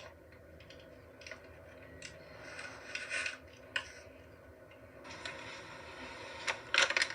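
Small plastic toy accessories and their packaging being handled: scattered light clicks and scrapes, then a few seconds of rustling toward the end, with sharper clicks near the end.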